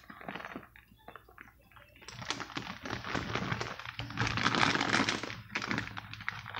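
Plastic bag of shredded cheese crinkling as it is handled, a few soft clicks first, then a few seconds of dense rustling.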